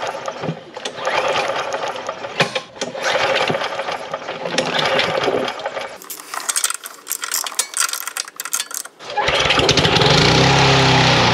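Walk-behind lawn mower's small single-cylinder overhead-valve engine: a run of clicks and clatter, then about nine seconds in the engine starts and runs loudly and steadily, its pitch wavering a little.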